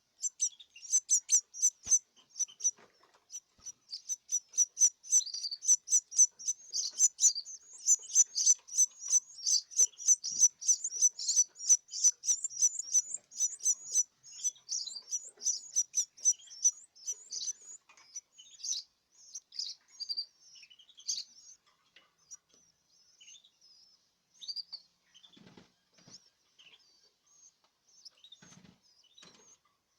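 Eighteen-day-old canary chicks calling with rapid, high chirps, packed close together for the first half and thinning out to scattered calls later. A few soft low thumps come near the end.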